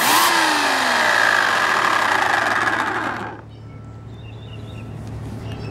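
Sun Joe SWJ700E 14-amp electric chainsaw run with no load. The motor and chain start with a sudden whirr, then fall steadily in pitch as it winds down, stopping about three seconds in.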